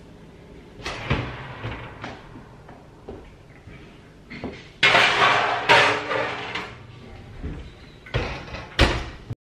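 A built-in oven door is pulled open, a baking dish is slid onto the metal oven rack with a loud scraping clatter, and the oven door is pushed shut with two sharp knocks near the end.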